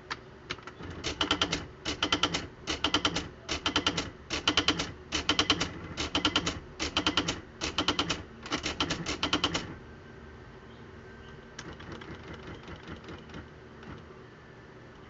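Smith Corona Display Dictionary electric typewriter striking characters in quick bursts, about ten runs of rapid strikes each lasting about half a second, then stopping; a few faint light ticks follow a couple of seconds later.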